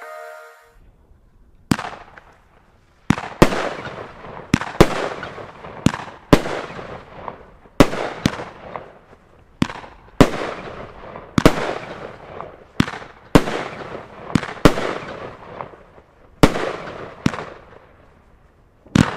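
Nico White Strobe 13-shot firework battery firing, starting about two seconds in: a string of sharp bangs every second or two, often in close pairs, each trailing off over about a second as the hard-bursting shells go off.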